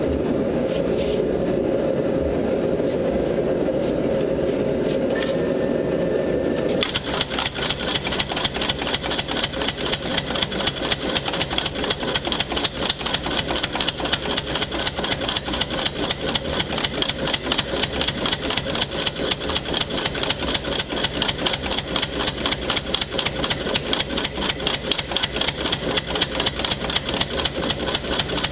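Benchtop belt-driven power hammer: its electric motor runs steadily, then about seven seconds in the ram begins striking, a fast, even run of blows on a red-hot steel bar that keeps going.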